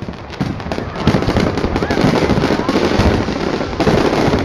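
Fireworks display: a dense, continuous barrage of bangs and crackling from many shells bursting at once, growing louder over the first second.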